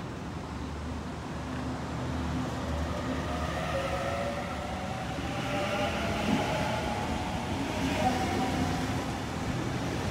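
A Sydney Trains double-deck electric train running past at close range, with the rumble of its wheels on the rails. From about three seconds in, the whine of its electric traction gear sounds as several steady tones over the rumble, and the whole sound grows louder as the train comes alongside.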